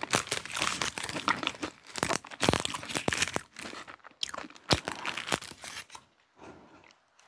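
Paper baking liner being peeled off the sides of a chocolate cake, crinkling and tearing in quick crackly strokes; it stops about six seconds in.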